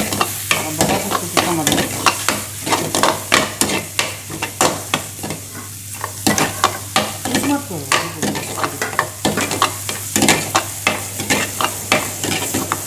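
Steel ladle scraping and knocking against an aluminium wok while stirring chopped vegetables sizzling in hot oil: a quick, irregular clatter over a steady sizzle.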